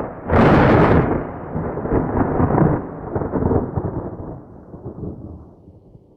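A thunderclap: a sharp crack about half a second in, then a long, uneven rolling rumble that slowly fades away.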